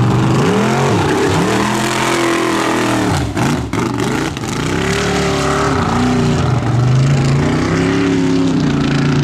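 Mud racing truck's engine revving hard, its pitch climbing and falling again and again as the throttle is worked through the turns, with a brief dip about three and a half seconds in.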